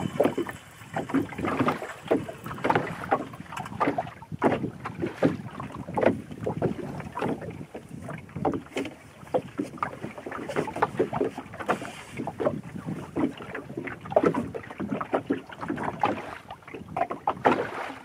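Water slapping and lapping irregularly against the hull of a small boat, with some wind on the microphone.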